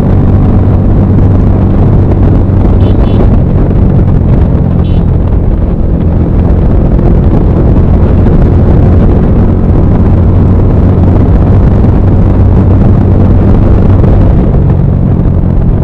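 Heavy wind noise battering an action camera's built-in microphone at riding speed, over the steady drone of a Bajaj Pulsar 220F's single-cylinder engine through a full aftermarket exhaust. The sound is loud and unbroken, with the engine holding steady revs.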